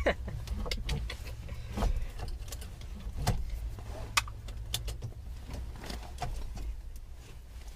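Scattered light clicks and knocks of parts being handled and worked loose while a steering wheel is twisted and pulled free of its column, over a steady low rumble.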